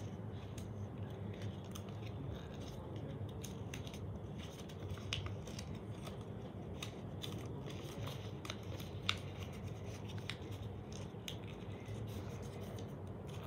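Origami paper being folded and pressed by hand: scattered crinkles, rubbing and small sharp crackles of the creasing paper, over a steady low hum.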